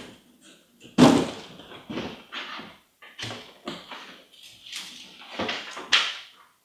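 A cardboard shoebox knocks down onto a table about a second in. The lid is then handled and the tissue paper inside is rustled, in a string of short scrapes and crinkles.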